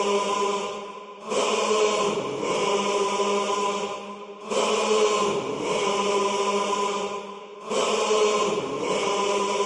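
Intro of a hip-hop song: a sustained, choir-like chanted vocal loop in three repeating phrases of about three seconds each.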